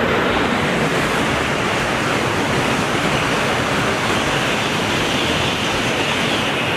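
Steady rush of running water, poured or sprayed over a muddy toy train to rinse it clean.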